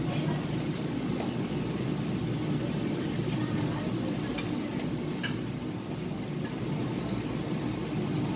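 Steady low background hum of a busy seafood market, with a few faint clicks and knocks.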